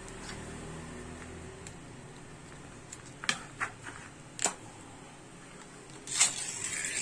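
A metal Spam can being opened by its ring-pull: a few sharp clicks of the tab a few seconds in, then a short rasping tear as the lid peels back near the end.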